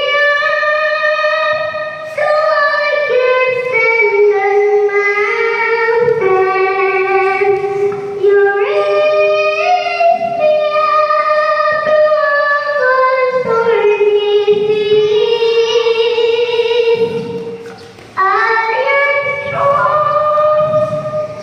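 Children singing a slow melody into microphones, amplified through loudspeakers, with long held notes and a short break near the end.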